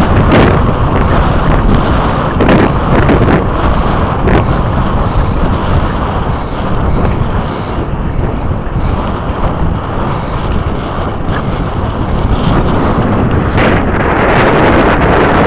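Wind buffeting the microphone of a camera carried on a moving bicycle: a loud, steady low rumble with a few short louder gusts.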